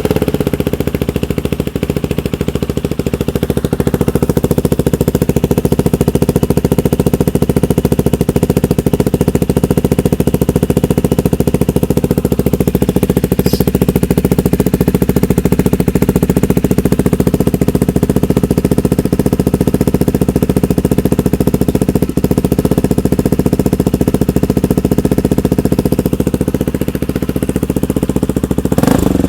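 Husqvarna Svartpilen 401's single-cylinder engine idling steadily through a Coffman's slip-on exhaust with the dB killer fitted. It is a loud, even exhaust note that holds at one pitch with no revving. The owner hears it as bassier with the dB killer in, but not a good sound.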